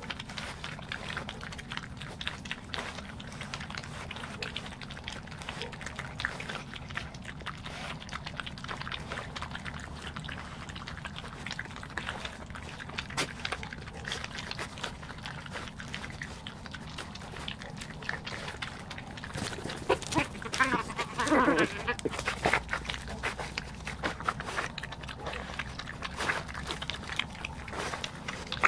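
European badgers feeding, crunching peanuts with many short crunching clicks. About twenty seconds in, one gives a loud, wavering growling groan, a grumpy badger asserting itself over the food.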